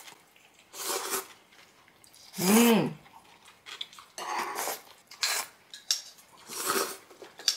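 A person slurping cold naengmyeon noodles in about five short, noisy slurps; one, about two and a half seconds in, carries a brief rising-and-falling tone.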